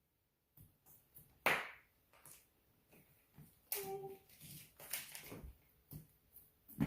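Scattered handling noises of toy ponies and accessories being handled, scattered light taps, clicks and rustles, the sharpest about one and a half seconds in and near the end, with a brief child's voice sound about four seconds in.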